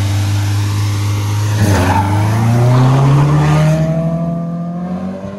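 Car engines at a drag-race launch: held at steady revs, then climbing in pitch under hard acceleration from about a second and a half in, with a rush of noise around two seconds in, easing off near the end as the cars pull away.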